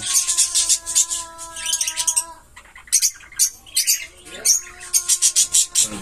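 Caged small pet parrots (lovebirds and budgies) chirping rapidly and high-pitched, many calls overlapping, with a short lull about halfway through. A fainter steady hum sounds underneath for the first two seconds and again near the end.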